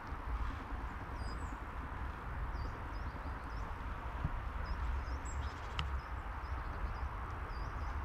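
Footsteps of a walker on a forest trail, crunching steadily over a continuous background hiss. Small birds chirp with short, high calls on and off through the middle.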